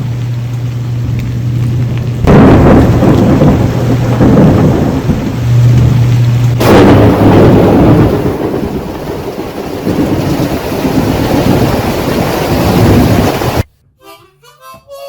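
Thunderstorm: steady rain, then thunder cracking loudly about two seconds in and again around six and a half seconds, each time rumbling on and slowly fading. Near the end the storm cuts off suddenly and harmonica music begins.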